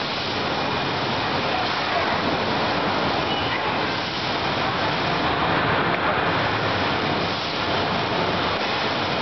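Steady rushing air noise from the blowers and suction hoses of a foam-ball play machine, with children's voices faintly mixed in.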